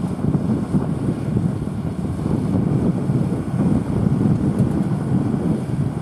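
Deutz-Fahr Agrotron 7250 TTV Warrior tractor's six-cylinder diesel engine running steadily under load as it pulls a four-furrow mounted plough through the soil.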